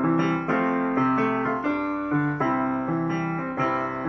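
Piano playing the instrumental lead-in to a children's song, with notes and chords changing about twice a second and no singing.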